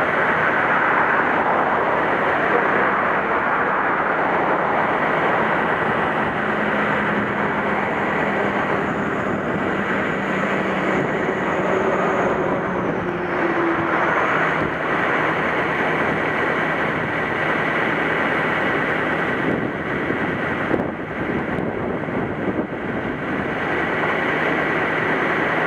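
A steady roar of surf and wind, with a vehicle engine running under it that rises in pitch briefly about halfway through, as the stuck pickup is towed up the embankment.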